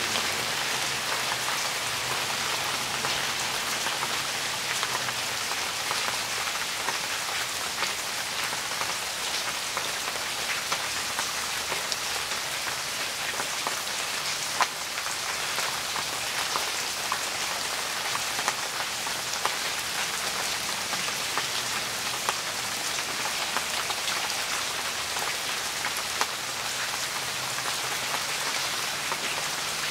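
Heavy rain falling steadily on wet ground and standing water, with many close drops ticking and one sharper drop about halfway through.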